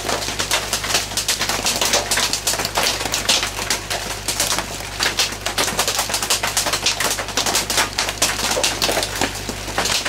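Heavy rain falling on a tin shed roof: a dense, continuous popping and ticking, with a low steady hum beneath.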